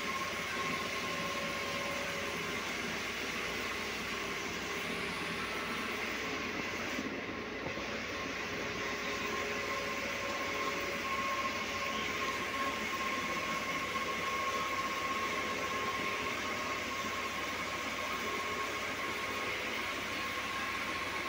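Steady mechanical whirring noise with a thin, high hum held at one pitch.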